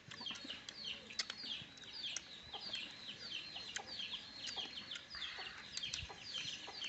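Chicks peeping: many short, falling high chirps, several a second and overlapping. Scattered soft clicks and smacks of people eating sit under them.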